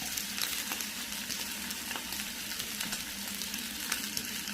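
Bacon sizzling in a frying pan: a steady frying hiss with scattered small pops and crackles.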